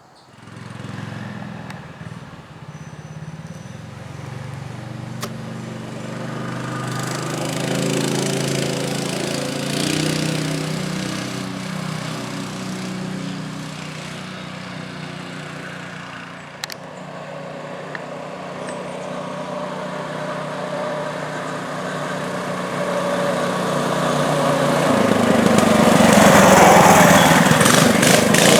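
Small single-cylinder engine of an MB200 mini bike running under way, its pitch rising and falling with the throttle. It gets louder over the last few seconds.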